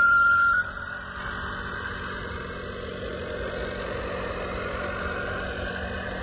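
A single steady high horn note that cuts off about half a second in, then the small live diesel engine of a G-scale model locomotive running steadily.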